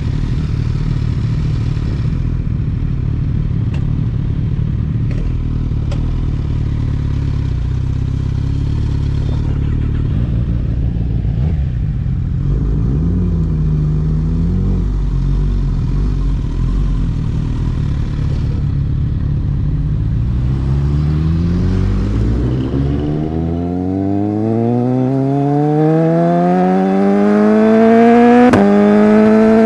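Superbike engine running at low revs, then from about two-thirds of the way in revving up steadily as the bike accelerates, its pitch climbing and then holding high near the end.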